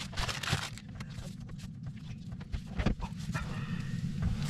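Plastic bread bag and food packets rustling and crinkling as they are handled and put down, in short bursts about half a second in and again near 3 s, over a steady low hum.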